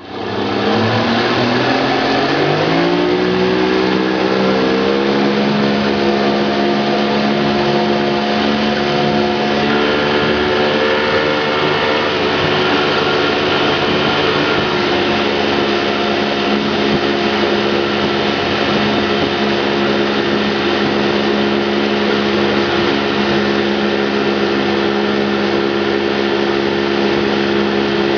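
Motorboat engine speeding up over the first few seconds, then running steadily at speed while towing a tube, over a steady rushing hiss.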